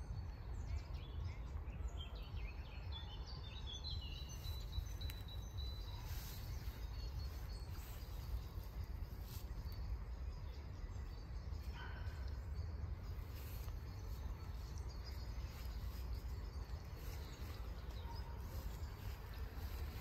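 Wild birds chirping and calling in open woodland, several short high calls and one held high note in the first few seconds, over a steady low rumble of outdoor background noise.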